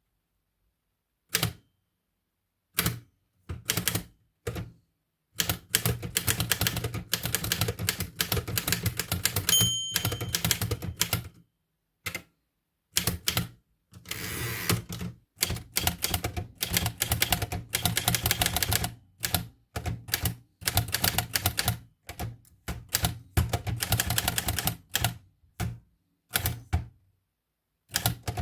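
1941 Erika Model M portable typewriter being typed on: a few separate key strikes, then fast runs of clacking keys against the new platen. Near ten seconds the margin bell rings once, and a few seconds later the carriage is returned with a longer scraping rattle before typing resumes.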